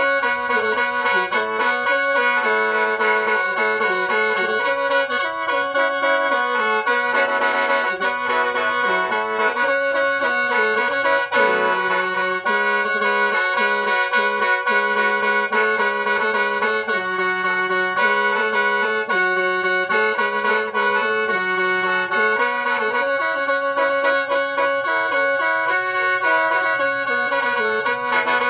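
Khaen, the Lao bamboo free-reed mouth organ, played solo: a melody moving over steady held drone notes, sounding without a break.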